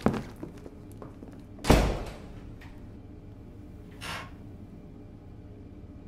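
A door in a tiled washroom bangs shut once, about two seconds in, with a short echo off the tiles. About two seconds later comes a softer, brief sound.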